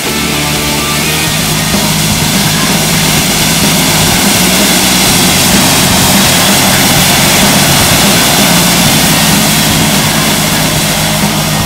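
Pratt & Whitney PT6A turboprop of a Piaggio P-180 Avanti running on the ground, turning its five-blade pusher propeller with a steady loud hiss and whine. It grows a little louder over the first several seconds and then eases slightly. Rock music plays faintly underneath.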